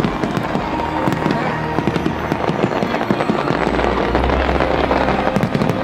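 Aerial fireworks going off in quick succession: dense crackling and popping of bursting shells, with heavier low booms about three and a half seconds in. Music and crowd voices carry on underneath.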